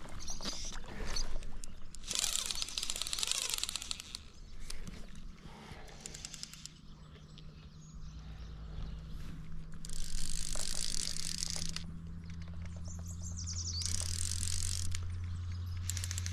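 Fly reel's click drag ratcheting in three bursts of a second or two, with scattered clicks between, as a hooked big brown trout runs and pulls line off the reel.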